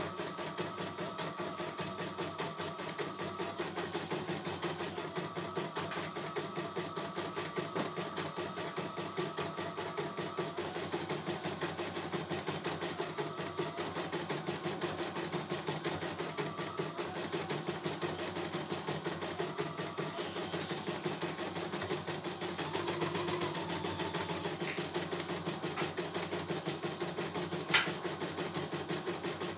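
CNY E900 embroidery machine stitching a test design, its needle running in a fast, even rhythm, running smoothly. A single sharp click sounds near the end.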